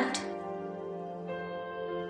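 Soft background music of sustained, held chords, changing chord about a second and a half in.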